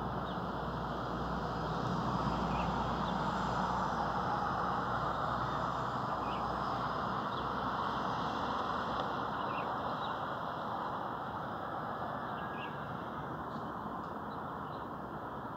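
Steady outdoor background hum over a spread-out industrial area, with faint short bird chirps scattered through it.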